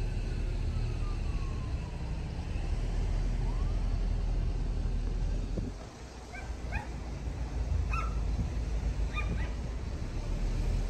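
Steady low road rumble of a car driving, easing briefly about halfway through, with a dog barking several short, sharp times in the second half.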